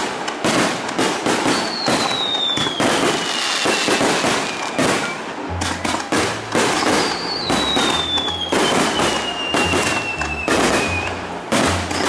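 Aerial fireworks display: a dense, continuous run of bangs and crackles from bursting shells. Over it come three long whistles that fall slowly in pitch, typical of whistling fireworks.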